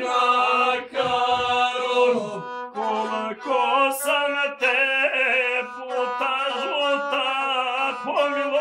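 Traditional folk singing by several voices, drawn-out wavering notes sung over a steady held low tone, with no clear words.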